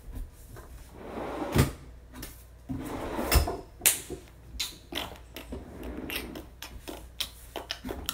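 Knocks, taps and rustling of someone moving about and handling things close to the microphone. Two longer stretches of rustling and scraping come in the first half.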